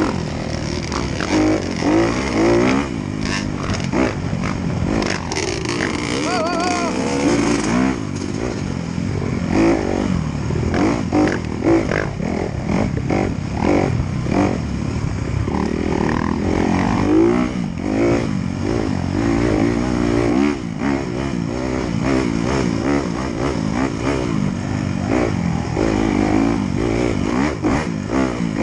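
Off-road dirt bike engine revving up hard and easing off again and again as it is ridden fast over a rough dirt trail, with short knocks and rattles from the bumps.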